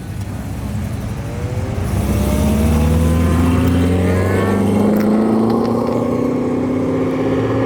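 Corvette Stingray's V8 pulling away, getting louder about two seconds in, its engine note then climbing slowly and steadily in pitch.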